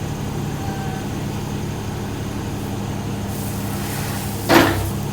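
Compact excavator's engine running steadily at low throttle while its controls are worked. About four and a half seconds in there is a brief louder noisy burst.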